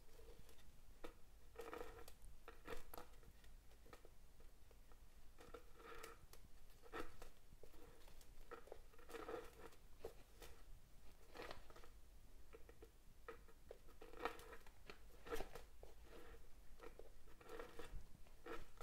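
Faint, irregular rustles and light ticks of waxed polyester cords being handled, pulled through and drawn tight into knots by hand on a fibreboard macramé board.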